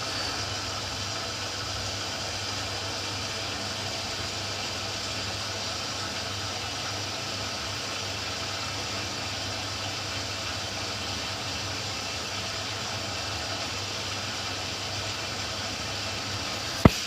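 Ariston Quadrifoglio LB476ST washing machine taking in water for its prewash: a steady rushing hiss with a low hum underneath, ending in a couple of sharp knocks near the end.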